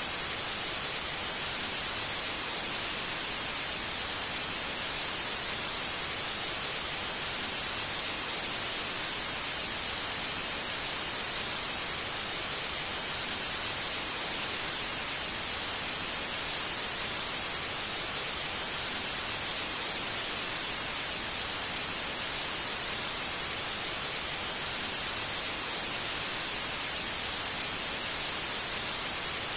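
Steady, even hiss of an untuned television's static, with no break or change.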